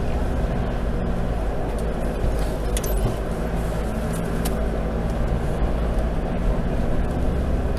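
Four-wheel drive heard from inside the cabin, its engine and tyres droning steadily as it crawls over a rough dirt track, with a few sharp knocks and rattles a few seconds in.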